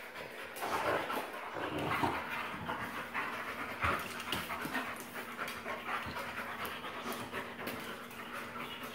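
A wolfdog and a Labradoodle panting hard as they play-wrestle, with scattered small clicks and scuffles of paws on a tile floor.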